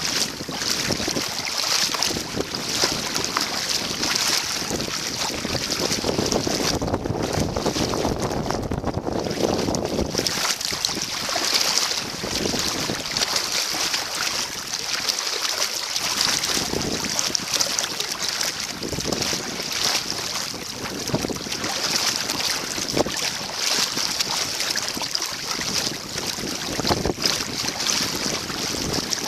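Blizzard wind buffeting the microphone, with water lapping and splashing around a kayak. The wind noise rises and falls in gusts.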